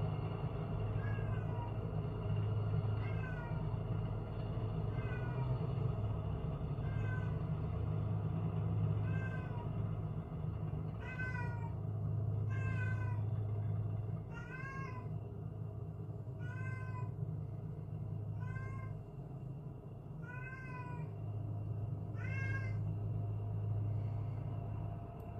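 A cat meowing over and over, short cries about every one and a half to two seconds that grow louder about halfway through. A steady low rumble runs underneath.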